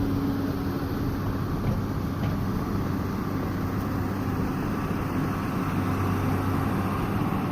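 Excavator's diesel engine running steadily, a continuous low drone.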